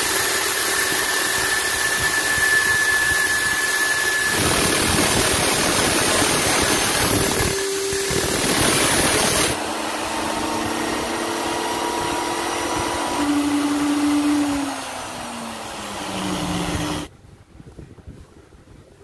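An angle grinder's disc grinding down a stainless steel shaft that is spinning in an electric drill, used as a makeshift lathe, with a loud, harsh hiss. About halfway the grinder stops and the drill keeps spinning the shaft against an abrasive sheet, a quieter steady whir whose pitch drops before the drill stops near the end.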